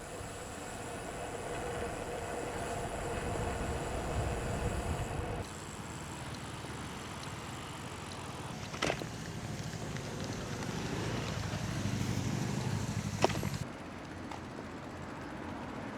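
Outdoor road noise from riding a bicycle: a steady rush of wind and tyres with a low rumble. The noise changes abruptly twice, and there are two short sharp clicks.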